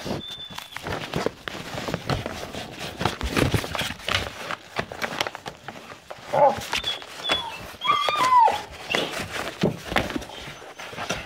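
Great Dane puppies playing right over the microphone: paws and nails scrabble and knock on the floor and the phone in a busy, irregular patter. A few short high-pitched squeaks and a brief whine come around the middle.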